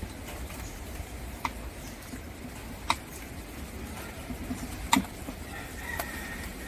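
Knife slicing small green figs on a round wooden chopping board: five sharp taps of the blade against the wood, a second or two apart, over a low steady rumble.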